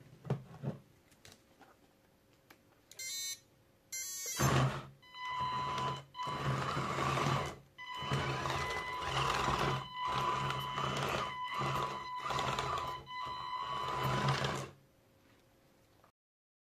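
Small 3D-printed RC tracked vehicle driving in short spurts, its electric drive motors whining with a steady high tone and a low hum, stopping and starting about every second or two. The spurts begin about four seconds in and end about a second before the end. A few faint clicks and two short high chirps come before the first spurt.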